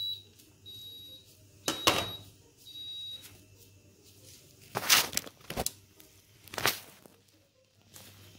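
An electronic cooking timer's alarm beeping in short high beeps about once a second, signalling that the cooking time is up, then stopping after about three seconds. A few sharp clatters follow, the loudest about five seconds in.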